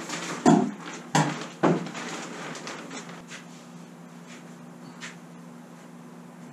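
Wooden spars knocking against a wooden boat as they are set down and handled: three loud knocks in the first two seconds, then a steady low hum.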